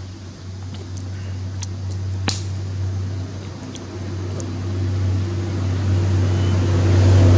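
A motor vehicle's engine running with a steady low hum that grows louder toward the end, as if drawing nearer. There is a single sharp click about two seconds in.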